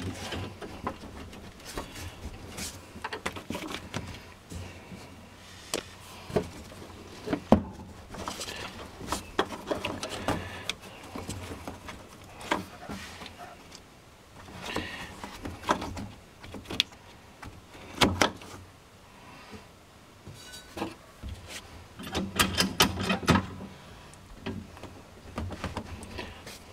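Scattered clicks, knocks and rustling of hands working a rubber fuel filler hose and its metal worm-drive hose clamp onto the neck of a fuel tank, with a busier run of clicking and rattling near the end.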